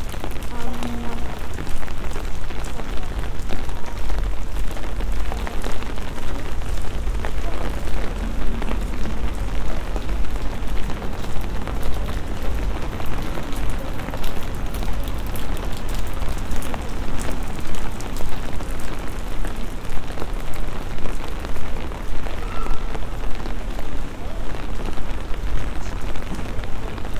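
Steady rain falling on wet paving, thick with tiny close drop ticks, over a constant low rumble.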